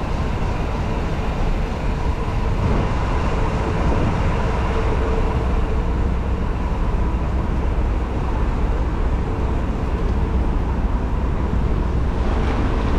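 Open-top double-decker tour bus running: steady engine and road noise with a heavy low rumble and a faint steady whine.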